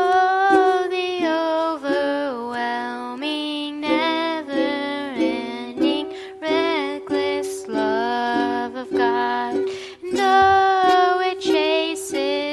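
Worship song: a singer's voice over a plucked-string accompaniment with sustained lower notes.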